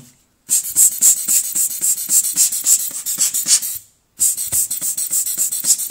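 Rubber hand air-blower bulb squeezed rapidly, puffing air about five times a second, in two runs with a short break about four seconds in, blowing dust off an opened phone's camera sensors.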